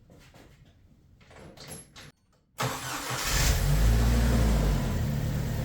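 2001 Jeep Wrangler TJ engine cranked by a newly installed starter: after a few faint clicks, it fires suddenly about two and a half seconds in, flares for about a second, then settles into a steady idle. The no-crank fault is cured by the new starter.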